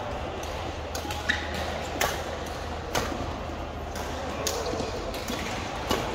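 Badminton rackets striking a shuttlecock in a doubles rally: five sharp hits about a second apart, over the steady hubbub of a busy hall with other games.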